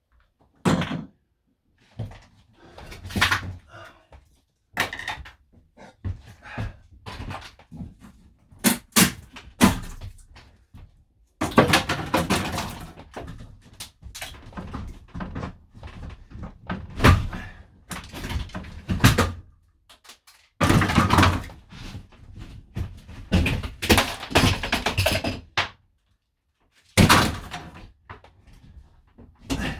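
Irregular knocks, thuds and bangs of wooden interior fittings being broken out of a camper van, with two long stretches of rapid clattering and cracking, in a small boxy space.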